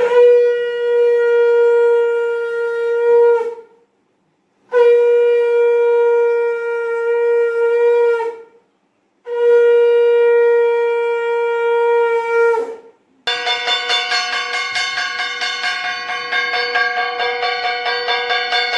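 Conch shell (shankha) blown in three long, steady blasts with short breaks between, the call that marks a Hindu puja. After the third blast a hand bell rings continuously with fast, even strokes.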